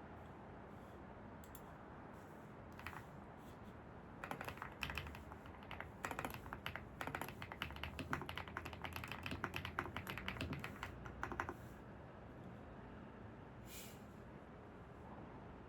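Typing on a computer keyboard: a few scattered keystrokes, then a quick, continuous run of keystrokes lasting about seven seconds in the middle, and one last keystroke near the end, over a steady low hiss of ambient noise.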